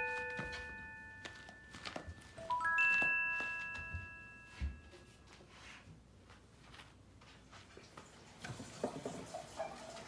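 Soft bell-like chime notes of background music, a couple of struck chords ringing and fading over the first three seconds. Then light taps and knocks of household handling, a soft thump about halfway, and small clinks near the end.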